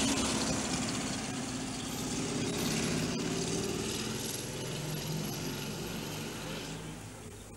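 A motor vehicle's engine running, with steady street noise, loudest near the start and fading about seven seconds in.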